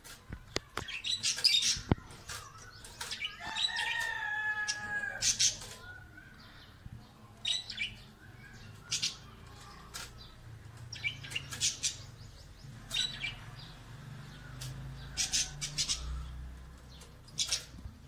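Caged budgerigars and other small parrots chirping: a scatter of short, sharp high chirps, with a longer, harsher call lasting a couple of seconds about three and a half seconds in.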